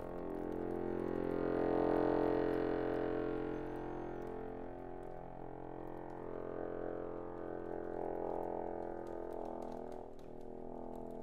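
Chromatic button accordion holding a dense, sustained chord cluster on a steady bellows draw, swelling to its loudest about two seconds in, easing off, then swelling again around eight seconds.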